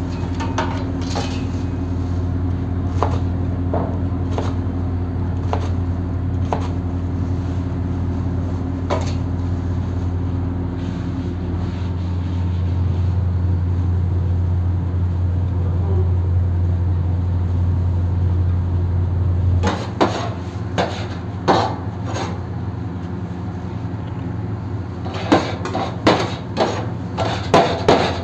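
A steady low kitchen hum with occasional light clicks. From about two-thirds of the way in, sharp metal knocks start, becoming rapid repeated strikes near the end: a metal spatula chopping shawarma chicken on the steel tray.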